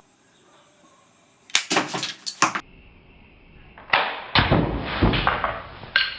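Homemade wooden pistol crossbow shooting: a quick cluster of sharp snaps about a second and a half in, then a run of sharp cracks, each with a short ringing tail, over the last two seconds.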